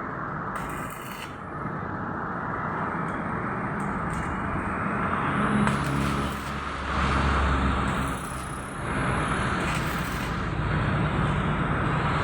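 An engine running steadily with noise that swells a few times.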